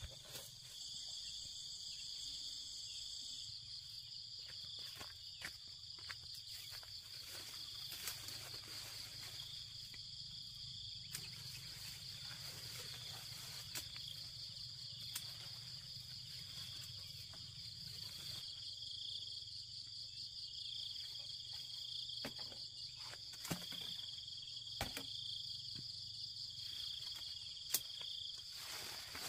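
A steady chorus of insects, a continuous high pulsing buzz, with scattered short clicks and rustles of handling among branches and leaves.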